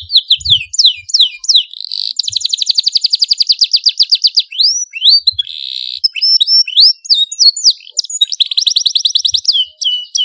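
Domestic canary singing loudly and without pause: long, rapid rolled trills of more than ten notes a second alternating with quick swooping whistled notes.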